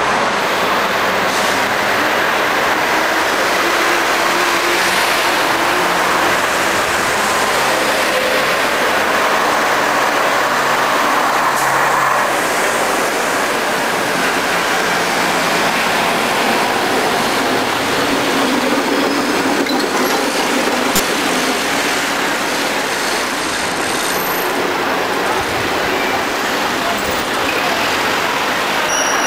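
Busy city street traffic: buses, minibuses and cars running past in a steady, dense mix of engine and road noise.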